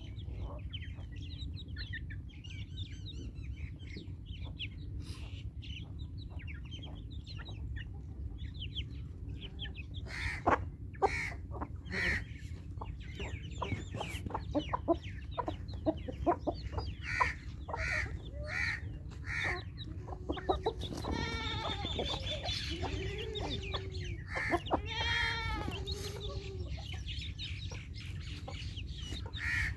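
A flock of chickens clucking as they feed, with many short calls from about a third of the way in. Several longer, louder calls come about two-thirds of the way through.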